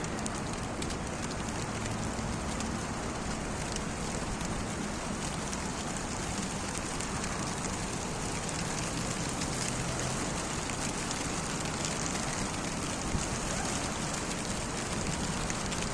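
Steady rain falling, with fine scattered drop ticks over an even hiss and a faint low hum underneath.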